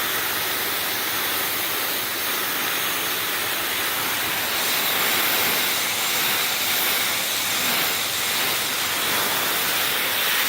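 Water spraying steadily onto the coils and fan grille of a central air conditioner's outdoor condenser unit: a continuous hiss.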